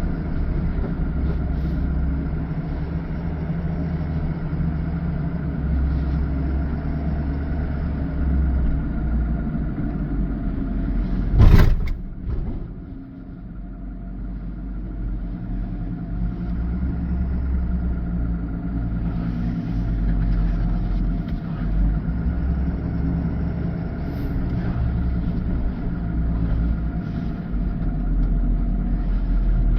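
Steady motor-vehicle engine rumble, with one loud sharp knock about eleven seconds in, after which the sound drops briefly and builds back up.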